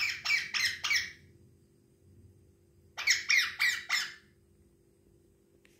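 Pet parakeet squawking: two runs of about four short, harsh screeches in quick succession, the second run about three seconds in.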